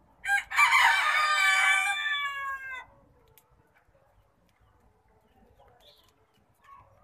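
A rooster crowing once: one drawn-out call of about two and a half seconds that falls in pitch at the end.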